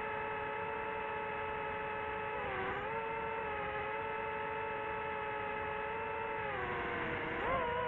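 DJI drone's motors and propellers running with a steady, multi-tone whine. The pitch dips briefly about two and a half seconds in, sags again later, then swings sharply up near the end as the motor speed changes.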